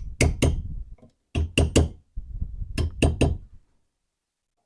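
Hammer tapping a brush washer into its bore in a vise body to seat it: nine short, sharp taps in three quick bursts of three, about a second and a half apart, stopping near the end.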